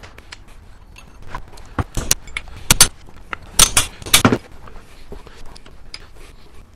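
Hammer tapping a brass punch held against a manual transmission case: several sharp metallic taps, mostly in quick pairs, between about two and four and a half seconds in.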